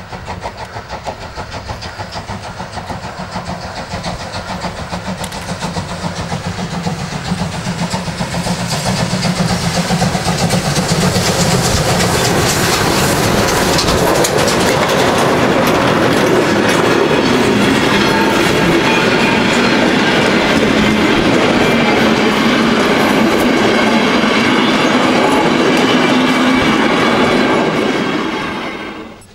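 Steam locomotive pulling away with a passenger train, its rhythmic exhaust beats growing louder as it approaches and passes, followed by the coaches rolling by with wheels clicking over the rail joints. The sound drops away sharply near the end.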